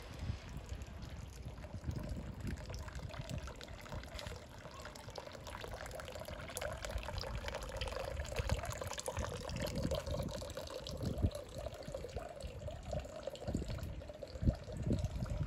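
Running water splashing and trickling steadily, with irregular low rumbles and thumps underneath.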